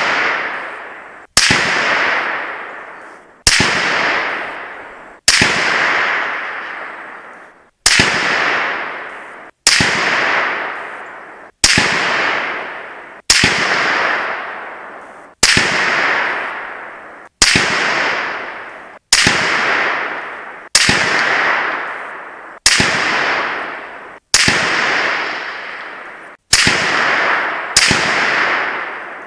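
A string of about fifteen 6.5 Grendel rifle shots, one every couple of seconds, picked up at the target end of the range. Each is a sharp crack followed by a long fading echo that is cut short as the next shot begins: single shots spliced one after another.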